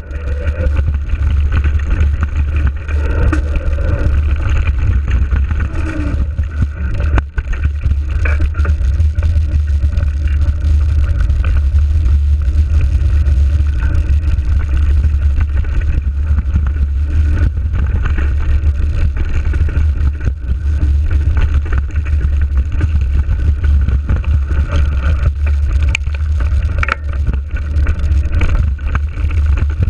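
Steady low rumble of wind buffeting a GoPro action camera's microphone while riding a bicycle along a dirt trail, mixed with the hiss and rattle of tyres and bike on the rough ground. A few short knocks from bumps on the trail.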